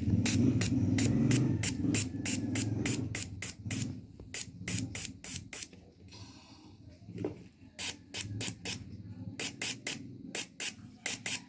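Mazda 3 fuel injector being pulsed under fuel pressure on a test rig, firing short hissing sprays of fuel several times a second, with a pause in the middle. A low hum sits underneath for the first few seconds. The injector, just cleared by back-flushing, now sprays in clean pulses and no longer leaks.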